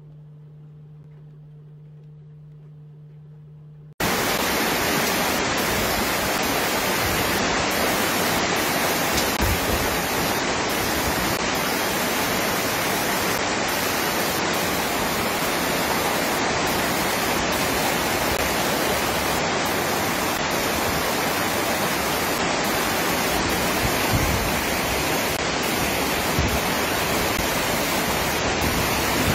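A faint steady hum for about four seconds, then an abrupt cut to a loud, steady rush of water: a storm downpour and floodwater pouring through a street.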